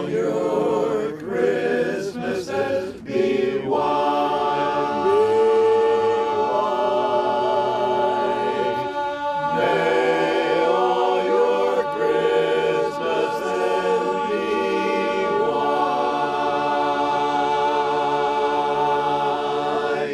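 Men's a cappella chorus singing in several-part harmony, ending on a long held chord.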